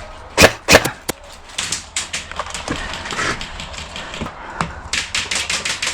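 Airsoft electric guns firing in rapid full-auto bursts and single sharp cracks. The two loudest cracks come about half a second in.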